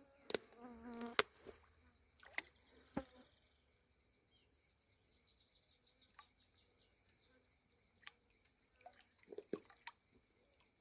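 Steady, high, finely pulsing chorus of insects trilling, with a few sharp light clicks and knocks in the first three seconds and again near the end.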